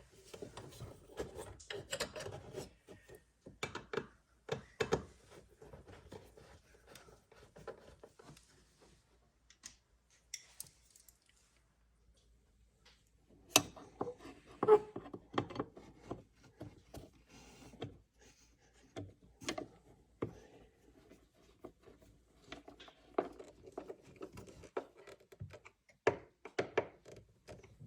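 Hands working with wiring and plastic dash parts: scattered clicks, knocks and rubbing, with a quiet spell of a few seconds around the middle.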